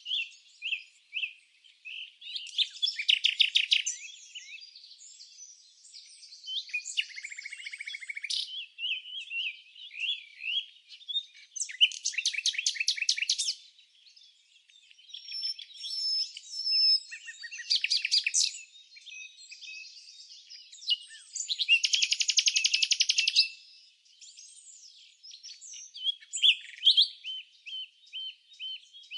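Songbirds chirping and singing, several calls overlapping: short chirps and whistles broken by bursts of fast trills a few times.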